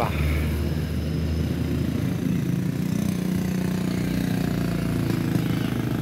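Road traffic passing close by: a pickup and motorcycles running at road speed. A motorcycle engine note grows stronger about two seconds in.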